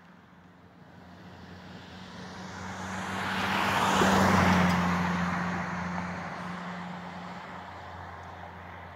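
A car passing by: road and engine noise swells to a peak about four seconds in, then fades away.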